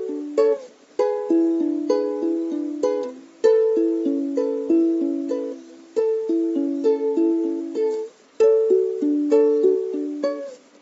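Music played on a plucked string instrument: picked notes in a repeating pattern, each one ringing and fading, with brief breaks between phrases.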